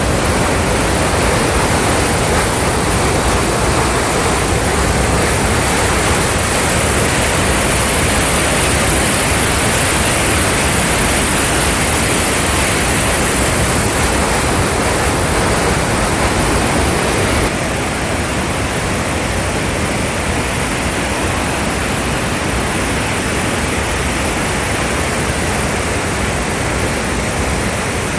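The Rhine Falls, a large waterfall, thundering with a loud, steady rush of falling water. The sound drops a little in level about two-thirds of the way through.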